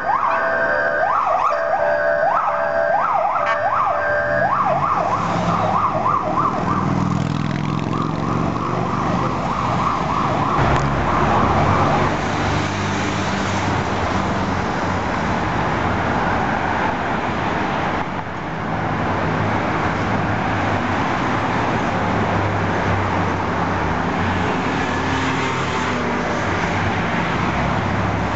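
Fire engine's Tomar 940-series electronic siren sweeping quickly up and down, switching to a faster sweep about four seconds in and fading away by about twelve seconds in as the truck drives off. After that, steady city traffic: passing engines and tyre noise.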